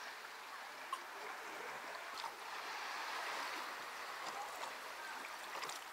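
Water washing along a moving boat's hull: a steady rushing wash that swells a little about halfway through, with a couple of faint knocks.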